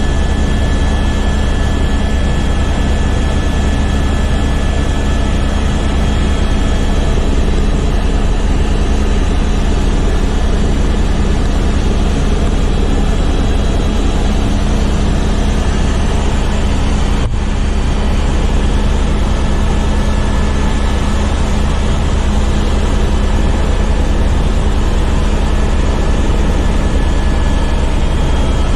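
Helicopter in flight heard from inside the cabin: a loud, steady deep drone from the rotor and engine, with a constant high whine over it.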